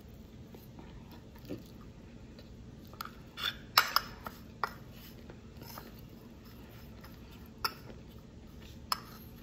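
Close-up eating sounds: spaghetti with manioc flour being chewed, with a spoon clinking and scraping against the plate in a cluster of sharp clicks about three to four seconds in and twice more near the end.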